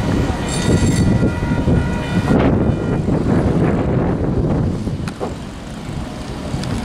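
Railroad grade-crossing warning bell ringing steadily with the flashers active, over the low rumble of a passing freight train; the bell stops about two and a half seconds in as the crossing clears and the gates get ready to rise.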